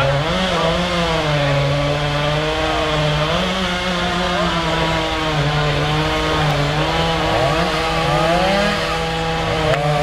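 Chainsaw running continuously at high speed, its pitch repeatedly stepping down and back up.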